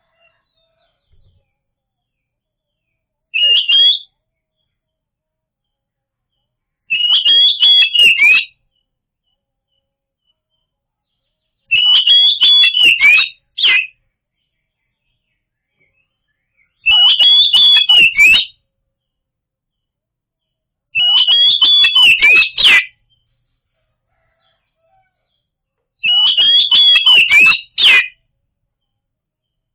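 Oriental magpie-robin (kacer) song played as a loud lure recording: short bursts of rapid, chattering whistled notes, each a second or two long, repeated about every four to five seconds with silence between.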